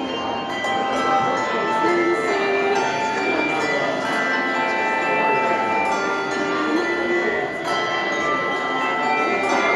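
Handbell choir playing: many hand bells struck in turn, their clear notes ringing on and overlapping into chords.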